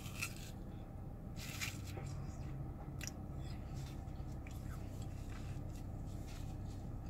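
Biting into and chewing a juicy slice of watermelon: several short, wet crunching bites and mouth noises over a steady low hum.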